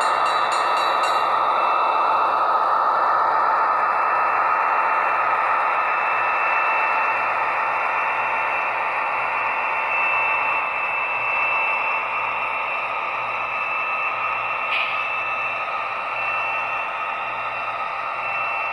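Märklin model train rolling past, with a steady whirring rolling noise of the wheels on the track and a thin, steady high whine; it fades slowly as the train moves along, with a brief click about 15 seconds in.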